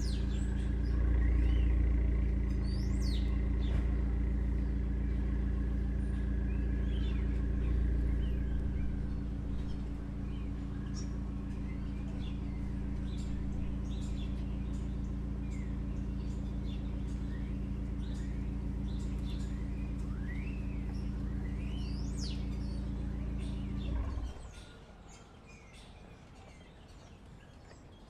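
New York City street ambience: a steady low mechanical hum made of several tones, with small birds chirping over it. About 24 s in the hum cuts off suddenly, leaving a much quieter street where the birds go on chirping.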